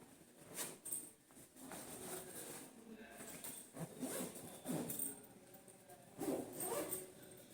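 Clothes and travel bags rustling and scraping as they are handled and packed, in short irregular bursts, with a few short sounds that slide in pitch about four and six seconds in.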